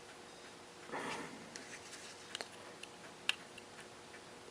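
Faint small clicks and taps of metal watchmaking tools being handled, with a brief soft rustle about a second in and a sharper click past the three-second mark.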